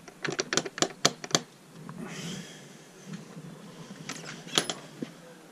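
A chrome door knocker on a uPVC front door rapped quickly about seven times, then a couple of sharp clicks near the end.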